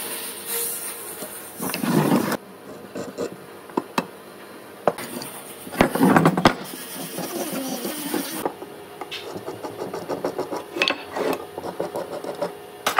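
Wooden rails and hand tools handled on a workbench: scattered knocks, clicks and scrapes, with louder thuds about two and six seconds in.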